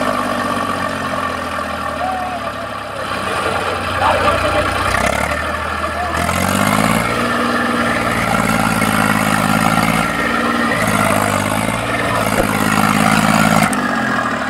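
Eicher 480 tractor's diesel engine running and revving up several times under load, with the tractor and its loaded trolley stuck in sand.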